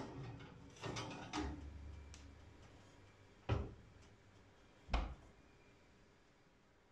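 Sharp knocks and clunks of objects being handled on a hard surface: a cluster in the first second and a half, then two single knocks about three and a half and five seconds in.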